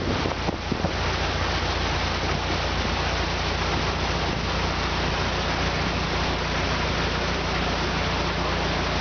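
Narrowboat engine running steadily in a lock chamber, a low even hum under a constant rushing noise.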